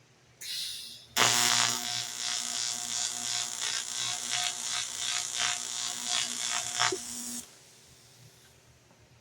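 AC TIG welding arc on aluminum: a short hiss, then the arc strikes and runs for about six seconds as a steady buzzing hiss with a hum, before cutting off suddenly.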